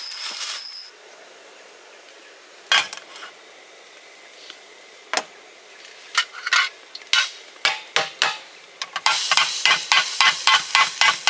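Metal utensil striking and scraping against a cooking pot: a few single knocks, then quick rhythmic strokes over the last two seconds. Sizzling sets in from about nine seconds in.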